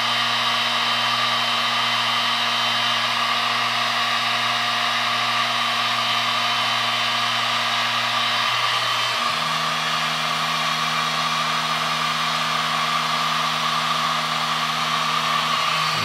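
DeWalt heat gun running steadily, blowing hot air to shrink heat-shrink tubing on a wiring harness. It makes a continuous fan rush over a low motor hum, and the hum steps up slightly in pitch about nine seconds in.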